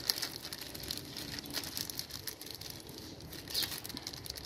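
Thin clear plastic bag crinkling and rustling as hands gather and wrap it around a branch: a steady run of small crackles, with a louder rustle about three and a half seconds in.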